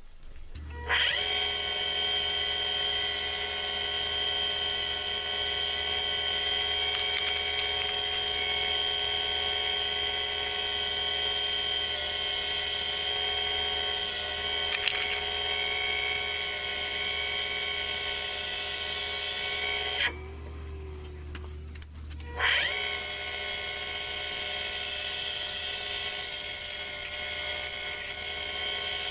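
Harbor Freight mini lathe running with a steady high whine while turning a purpleheart wood blank round. It stops about 20 s in and starts up again about two seconds later, its pitch rising as it comes back up to speed.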